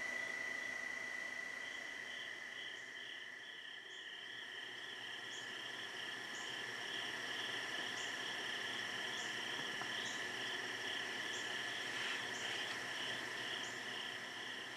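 Chorus of crickets and other night insects: a steady high-pitched drone with a pulsing trill above it and short, higher chirps repeating about once a second.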